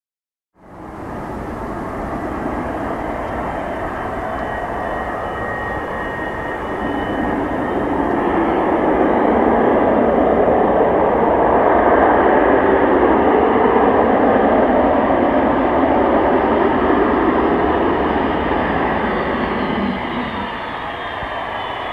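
Boeing 737-200's Pratt & Whitney JT8D turbofans on landing: loud jet noise with a thin high whine over it. It cuts in abruptly about half a second in, swells louder from about eight seconds in, and eases a little near the end.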